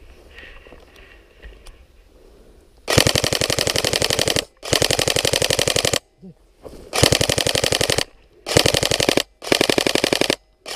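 Airsoft electric rifle firing on full auto in five bursts of rapid, evenly spaced shots, each a second or so long, starting about three seconds in.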